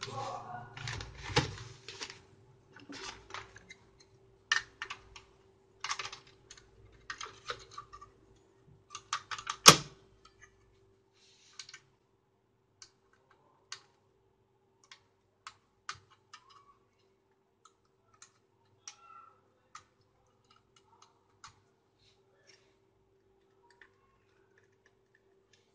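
Hands handling an opened LCD monitor's metal chassis and circuit boards: rustling, knocks and many small clicks as wire connectors are pushed into the power board, with one sharp, loud click just under ten seconds in, then only occasional light clicks.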